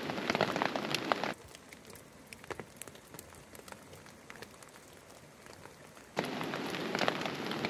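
Rain pattering steadily on the MSR Hubba Hubba NX2 tent's flysheet. It drops away suddenly about a second in to a much quieter stretch of faint scattered ticks, and comes back just as suddenly about six seconds in.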